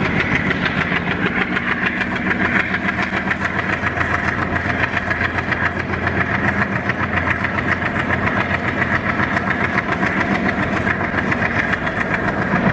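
ALCO WDM3D diesel locomotive's engine working under power as the train pulls away, a steady low drone with a quick pulsing beat of about three or four a second, heard close up from the first coach behind it.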